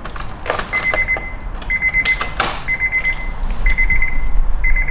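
Keys jangling and clicking as the ignition key in a Honda S2000 is turned, then the car's warning buzzer beeping about once a second.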